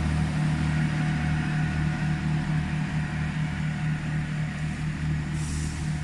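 Diesel engines of a GWR Class 165 Turbo multiple unit, a steady low drone with a pulsing throb beneath it, fading slightly as the train pulls away.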